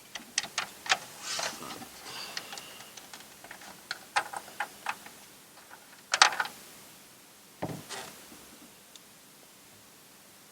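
Irregular small plastic clicks and taps of hands working an LED bulb and a car's interior light housing, with a louder sharp click about six seconds in and a dull knock just before eight seconds.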